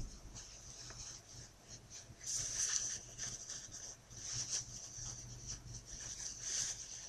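Ring-sling fabric rustling and rubbing as it is handled and adjusted, in three louder swells: around two and a half seconds in, about four and a half seconds in, and near the end.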